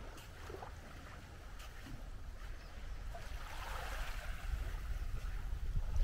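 Small waves washing in on a beach, one wash swelling about two-thirds of the way in, with wind rumbling on the microphone.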